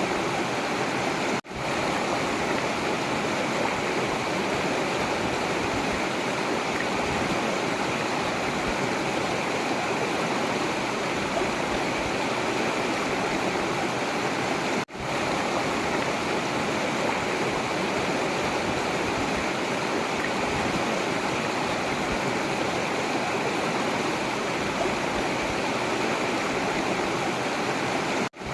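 River water rushing and flowing steadily. The sound drops out for an instant three times, roughly every thirteen seconds.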